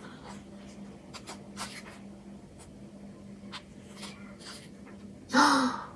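Pages of an album photobook being turned by hand: a string of short, soft paper rustles and flicks over a faint steady hum. Near the end comes a short, loud, breathy voice sound.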